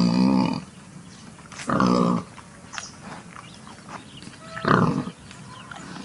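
Pig calling: three loud, pitched calls, each under a second long, with fainter sounds in between.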